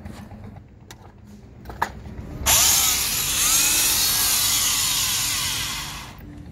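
Corded electric drill run in the air, not cutting anything: a loud motor whine starts suddenly about two and a half seconds in and runs for about three and a half seconds, then dies away. A few faint clicks come before it.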